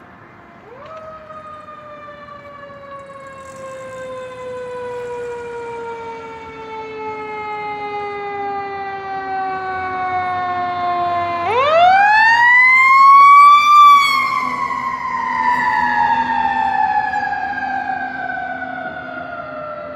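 Federal Q2B mechanical siren on a fire engine: one long wail that coasts slowly down in pitch for about ten seconds, is spun back up quickly to a high, loud peak, then coasts down again.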